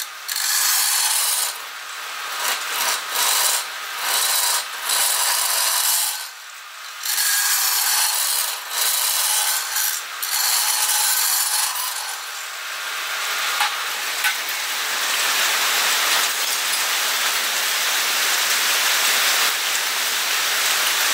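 Lathe tool cutting inside a spinning wooden vessel as it is hollowed out, a noisy scraping hiss of wood shavings being cut. In the first half it breaks off in short pauses as the tool comes off the wood; from about halfway it runs steadily.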